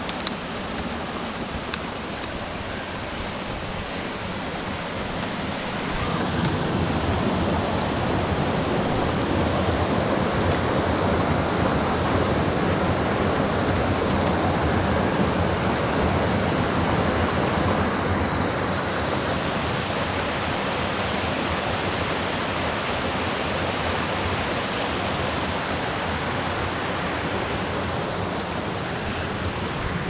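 Mountain stream rushing over boulders and small cascades, a steady rush of water that grows louder about six seconds in and eases slightly after about eighteen seconds.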